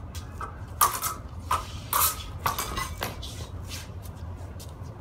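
Steel fencing swords clashing: several quick metallic clinks and scrapes of blade on blade, bunched between about one and three seconds in.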